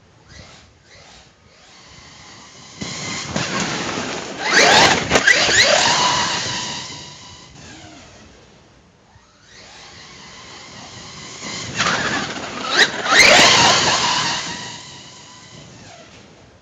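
Brushless electric motor of a Hobao Hyper ST Pro RC stadium truck whining as the truck drives past twice on grass. Each pass grows louder and then fades, its pitch falling as the truck moves away.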